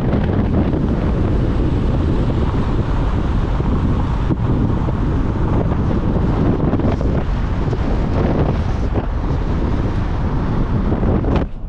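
Heavy wind buffeting a camera microphone held out of a moving car's window: a loud, steady rush that is strongest in the low end. It drops off briefly just before the end.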